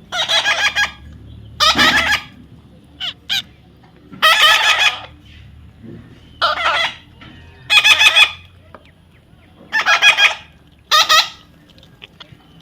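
Parrot giving a series of about seven harsh squawks, each under a second and spaced one to two seconds apart, with two short chirps between them.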